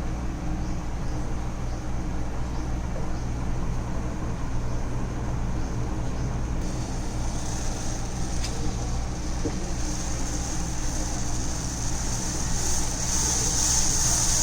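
Milk tea boiling in a pan on a gas stove: a steady low rumble, with a hissing bubble that comes in about halfway and grows louder near the end as the tea rises to a full boil.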